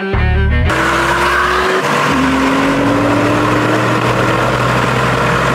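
Background music cuts off under a second in. Then a high-powered car accelerates flat out in a rolling-start race, its engine pitch climbing, dropping once about two seconds in and climbing again, over loud tyre and wind noise.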